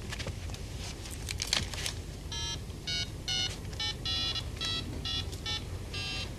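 Keypad beeps of a 1990s handheld mobile phone as a number is dialed: about ten short beeps in quick succession, after a few clicks at the start.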